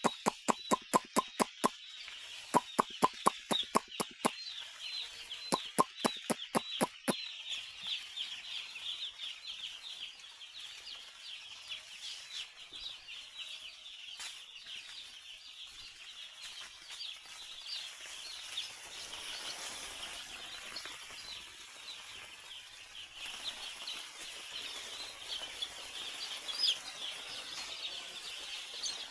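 A large flock of chickens in a poultry house keeps up a continuous, dense chatter of short, high cheeps and clucks. In the first seven seconds, three runs of sharp clicks come at about four a second.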